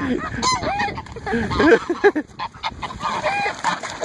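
Several white domestic geese honking repeatedly and over one another, calls rising and falling in pitch, as they fight with dogs.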